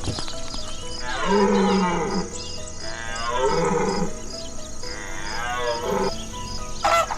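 Three long, pitched animal calls about a second apart, each about a second long, over background music with a steady beat.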